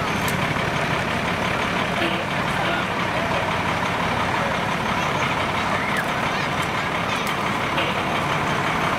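A heavy vehicle's engine running steadily as it rolls slowly past, with crowd voices behind it.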